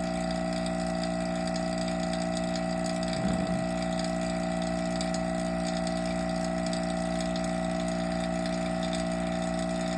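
Vacuum pump running with a steady, even hum that holds several fixed tones, keeping a DIY vacuum furnace chamber under vacuum.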